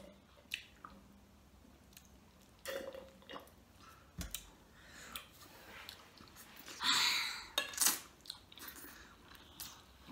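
Close-up chewing and biting sounds of people eating shrimp alfredo pasta, with scattered small clicks and a louder burst about seven seconds in.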